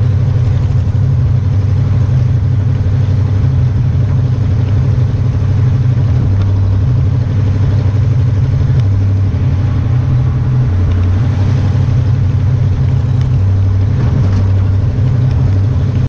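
An engine running steadily, loud and low-pitched, stopping abruptly at the very end.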